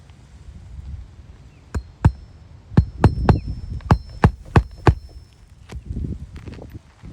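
Roofing nails being driven into an asphalt shingle: about nine sharp strikes in quick groups, fastening a replacement shingle.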